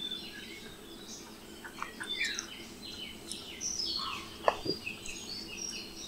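Several birds calling together in a busy chorus of short chirps and downward-sliding whistles, with one short sharp click about four and a half seconds in.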